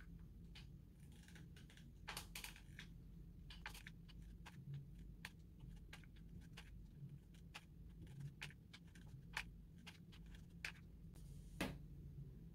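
Faint, irregular small clicks and rustles of hands handling a felt flower and a hot glue gun, with a sharper knock near the end as the glue gun is set down on the stone tabletop.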